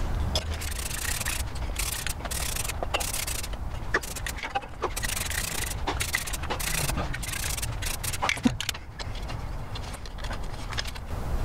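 Aerosol can of rust-converting spray paint hissing in a series of short passes about a second long each, with brief pauses between, as headlight buckets are coated. A few light clicks and knocks fall between the passes.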